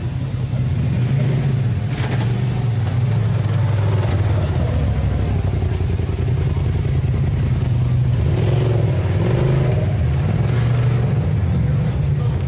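Off-road UTV engines running at idle: a loud, steady low hum with a brief wavering in pitch near the middle. A sharp click about two seconds in.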